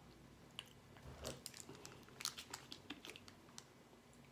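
Plastic sports-drink bottle being handled and its screw cap twisted off: a dull knock, then a quick run of small clicks and crinkles that fades out near the end.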